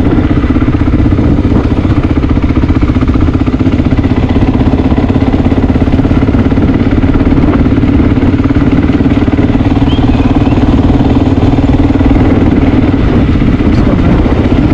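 Honda XR dual-sport motorcycle's single-cylinder four-stroke engine running steadily at low speed, heard from the rider's own bike.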